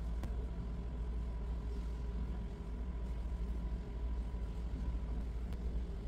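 Steady low rumble of background noise with a faint, steady high whine running through it.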